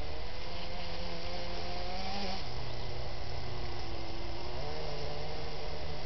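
Electric drive motors of a Kyosho Blizzard RC snow groomer whining under load as it pushes heavy snow. The whine climbs slowly, drops sharply a little over two seconds in, then steps back up near five seconds as the throttle changes.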